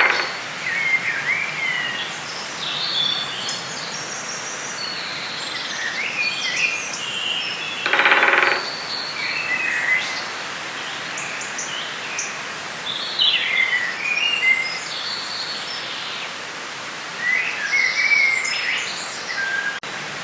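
Forest ambience: several birds singing and chirping over a steady background hiss, with a louder, harsher call about eight seconds in.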